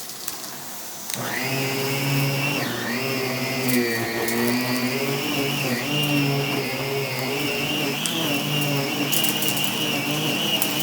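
Central vacuum with a Wessel-Werk EBK 360 electric powerhead running on plush carpet: the motor whine and brush-roll hum are much quieter for about a second, then come back abruptly and run steadily, their pitch wavering slightly.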